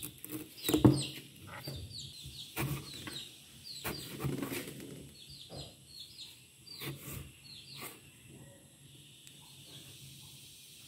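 A kitchen knife slicing tomatoes and chilies on a chopping board, giving sharp knocks every second or so, the loudest about a second in. Many short, high, falling bird chirps sound throughout.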